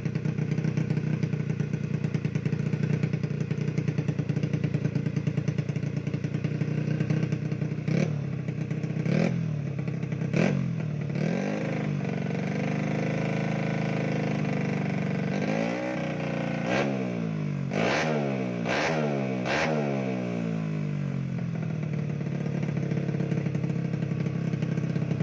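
Honda BeAT scooter engine bored up to 130cc idling, then revved with a run of quick throttle blips, one longer held rev about halfway, and more blips before it settles back to a steady idle.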